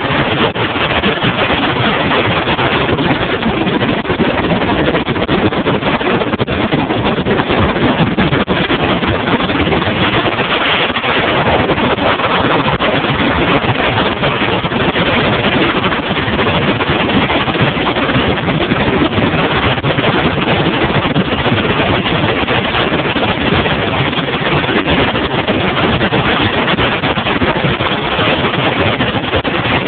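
Bass boat running across open water: a steady rush of engine, hull-on-water and wind noise at an even level throughout.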